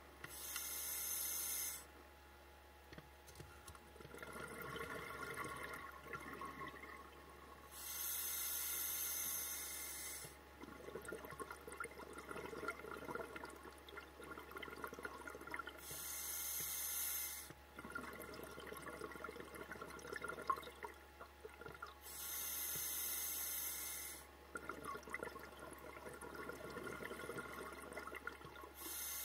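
Scuba diver breathing through a regulator underwater: a short hiss of air at each inhalation, then a longer bubbling rush of exhaled bubbles, repeating about every seven seconds.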